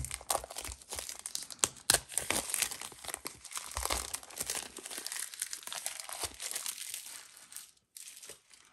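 Plastic shrink wrap crinkling and tearing as it is peeled off a cardboard card-deck box, a dense run of sharp crackles that thins out and quiets after about six seconds.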